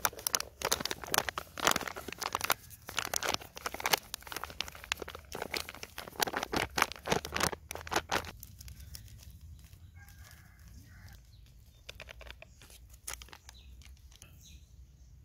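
A flour packet crinkling and rustling as it is shaken and emptied into a plastic bowl, for about eight seconds, followed by only faint handling sounds.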